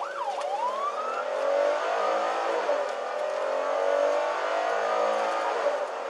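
Police squad car's siren yelping, ending with a last rising sweep about a second in, then the car's engine accelerating with a slowly rising pitch, heard from inside the cabin.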